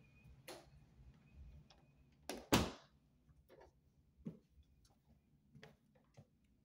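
A door knocking shut twice in quick succession about two and a half seconds in, followed by a few light clicks and taps.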